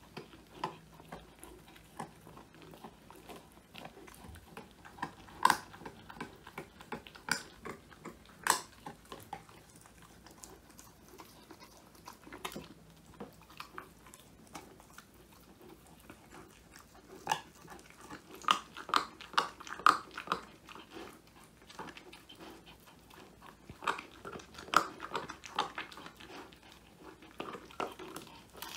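Old English Sheepdog puppy chewing a whole quail treat, its teeth cracking the crunchy bones in sharp, irregular crunches. The crunches come in flurries, with a quieter stretch of slower gnawing in the middle.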